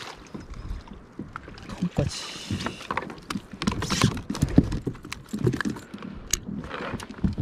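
Irregular knocks, clicks and a few short hissing rushes of water and gear on a sit-on-top fishing kayak while a hooked fish is being fought and reeled in.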